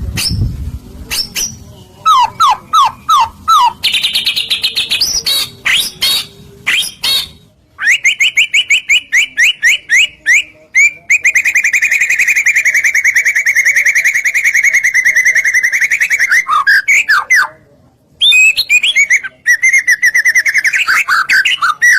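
Songbird song from a bird-lure recording: varied loud phrases of quick falling whistles and buzzy notes, then a long, rapid trill that runs for about five seconds from the middle on, with brief pauses between phrases.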